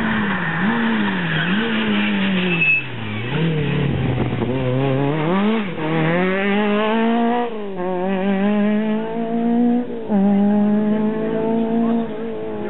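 Rally car's engine revving hard through a bend, then accelerating away. The revs climb and drop back sharply at upshifts about five and a half, seven and a half and ten seconds in.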